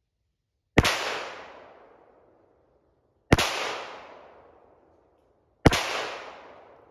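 Three pistol shots from a Kel-Tec PMR-30 .22 Magnum, evenly spaced about two and a half seconds apart, each a sharp crack followed by an echo dying away over about a second and a half.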